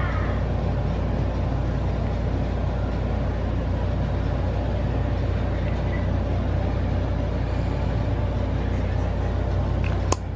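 A steady low hum with a hiss over it, unbroken throughout, and one sharp click near the end.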